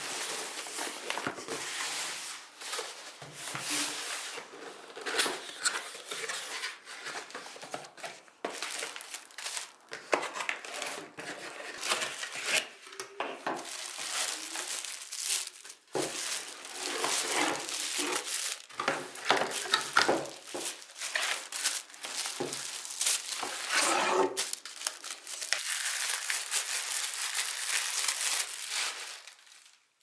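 Plastic packaging crinkling and cardboard box flaps rustling as a boxed blender is unpacked by hand, with many small taps and knocks.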